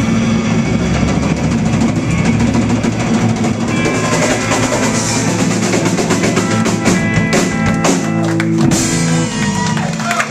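Live blues band with electric guitars, bass guitar and drum kit playing the closing bars of a song, ending in a run of rapid drum and cymbal hits over the last few seconds.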